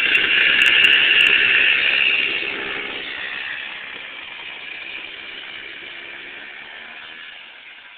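Kid kart's small engine running at speed close by, then fading steadily as the kart drives away.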